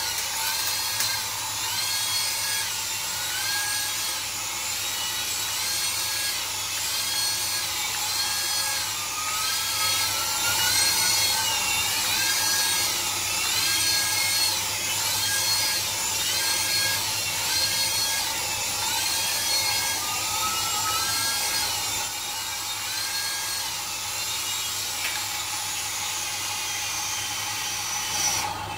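Small coaxial RC toy helicopter's tiny electric motors and twin rotors whining in flight, the pitch rising and falling over and over.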